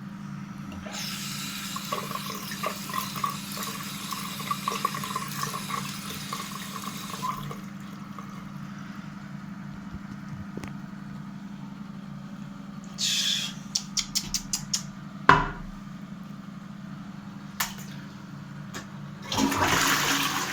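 Toilet flushing, water rushing into the bowl for about seven seconds. Later come a quick run of sharp clicks, a single thump and a short rush of noise near the end, over a steady low hum.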